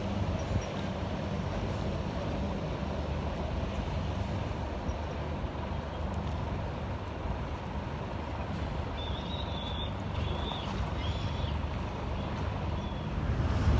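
Steady low rumble of river ambience: boat and city engines over moving water. A few faint high chirps come about two-thirds of the way through.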